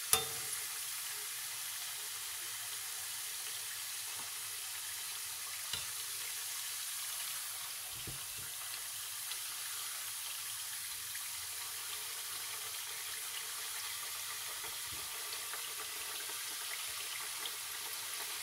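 Diamond-shaped pieces of namak para dough deep-frying in hot oil in a wok: a steady sizzle, with a few light knocks of a slotted spoon against the pan.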